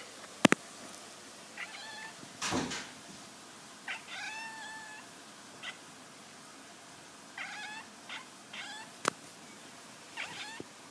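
A cat making a run of short, pitched calls and meows, some falling in pitch, with one longer call about four seconds in. Two sharp clicks, one near the start and one about nine seconds in, are the loudest sounds.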